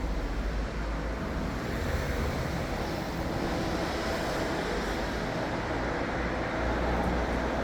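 A 1997 LG LGP traction elevator running between floors: a steady low rumble with a rushing noise, heard from inside the car.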